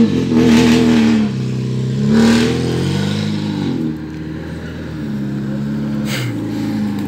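Engine of a modified off-road 4x4 revving as it drives, the revs rising and falling several times, then dropping to a lower, steadier pitch about four seconds in.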